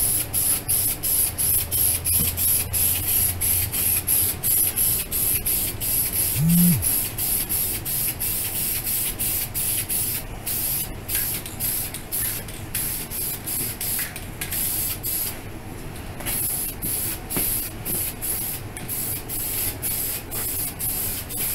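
Aerosol can of self-etching primer spraying in quick, even pulses as a light first coat goes onto a plastic car bumper, with a short break about three quarters of the way through.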